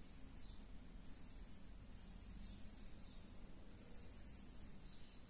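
Felt-tip marker drawn across a glossy print, making faint scratchy strokes in several short spurts over a low steady hum.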